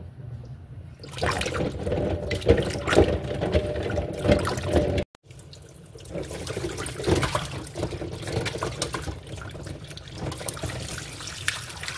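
Tap water running into a stainless steel bowl and splashing as eggs are rubbed and rinsed by hand. It gets louder about a second in and cuts out for a moment about five seconds in, then carries on.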